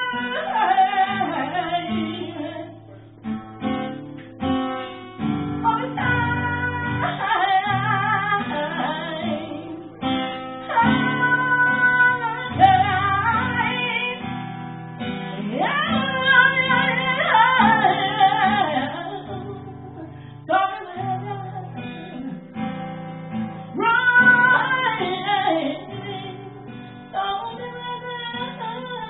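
A woman singing a slow blues song in long phrases with short breaks, accompanying herself on an acoustic guitar.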